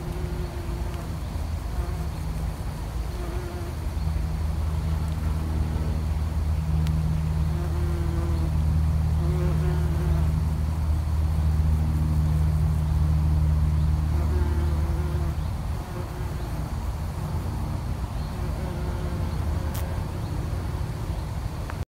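Foraging bees buzzing: a low, steady hum, louder through the middle, with shorter, higher buzzes coming and going as single bees fly past.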